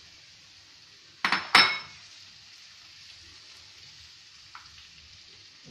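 Two sharp metallic clanks, close together about a second in, as a utensil strikes the frying pan. Under them the chopped onion, tomato and raw mango fry with a faint steady sizzle.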